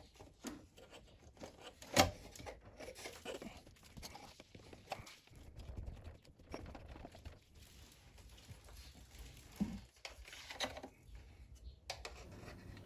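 Hand-handling noises from refitting a keyboard's repaired power button: scattered light clicks and rustles, with one sharp click about two seconds in.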